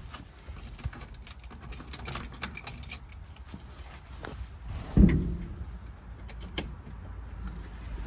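Light metallic jangling and clicking as the cab of an old pickup is worked on, then a single dull thump about five seconds in.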